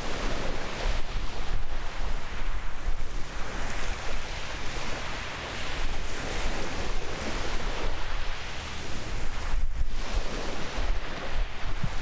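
Wind buffeting the microphone, a gusty low rumble over a steady hiss of wind and water.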